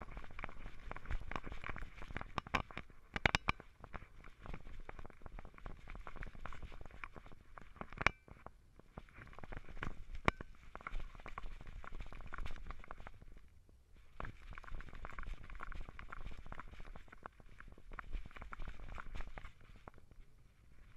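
Dense rustling and clicking from a camera strapped to a walking dog's back, jostling with its steps, with a few sharper knocks.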